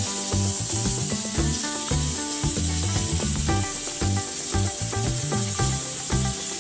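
Light background music with held notes over a repeating bass line.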